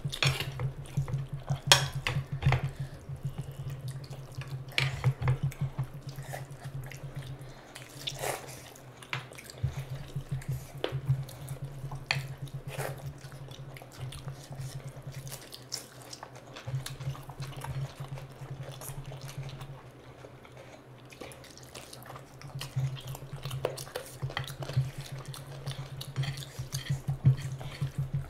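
Wet squelching and smacking of hands kneading rice into curry, with open-mouthed chewing of meat and rice: many short, irregular wet clicks and smacks.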